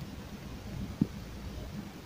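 Quiet low background hum with a single brief soft thump about a second in.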